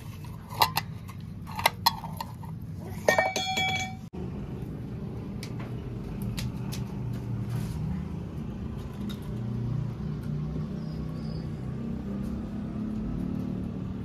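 Dishes clinking: a few sharp clicks, then a brief ringing clink about three seconds in, followed by a steady low background rumble.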